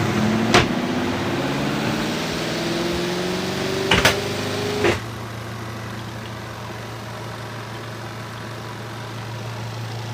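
Kuppet portable washer's spin motor spinning the basket up for a 2-minute spin-out, a whine rising in pitch over a rushing noise, with a few sharp knocks. About five seconds in the noise drops away, leaving a steady low hum.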